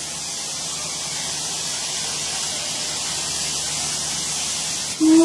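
Steam locomotive letting off a steady hiss of steam, then a single low steam whistle blast starting about five seconds in.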